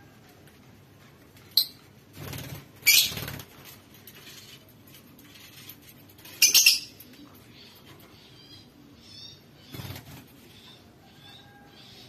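Lovebirds: several sudden loud bursts of wing flapping and shrill calls, about a second and a half, three, six and a half and ten seconds in, with a run of short quick chirps near nine seconds.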